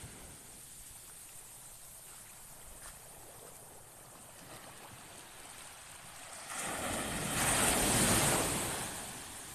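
Low surf washing on the beach, then a larger wave breaking and running up the shore that swells and fades over about three seconds near the end.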